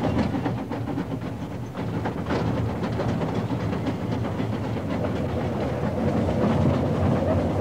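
Small narrow-gauge steam locomotive running along and hauling an open wooden passenger truck: a steady rumble of the engine with the clatter of wheels on rail.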